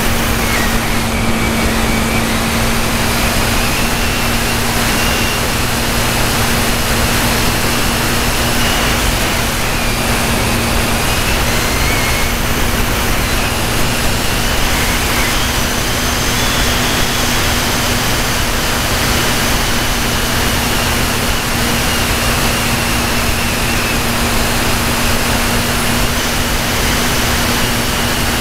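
Radio-controlled model airplane in flight, heard from a camera on board: the motor and propeller run steadily with a high whine that wavers gently in pitch, under a constant rush of wind noise.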